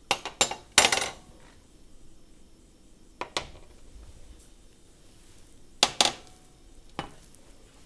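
Sharp metallic clinks and knocks of small metal parts being handled and set down: a loud one about a second in, then single knocks near three, six and seven seconds.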